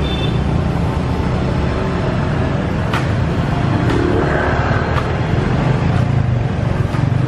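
Motorbike traffic on the road, a steady low engine rumble, with a few faint clicks about a second apart in the middle.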